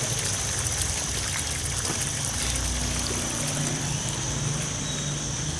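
Drained tank water gushing steadily from a pipe and splashing into a puddle on the ground.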